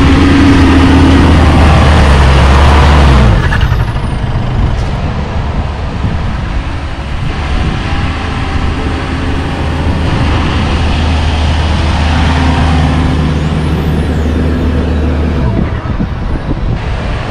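Four-wheel-drive engines working hard up a soft beach-sand track, with two spells of steady high revs: one at the start lasting about three seconds, and another from about ten seconds in that lasts about five seconds. A steady rushing noise runs underneath.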